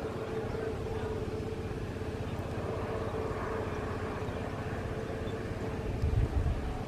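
Jet airliner engines running with a steady hum over a broad rushing noise, and a louder low rumble about six seconds in.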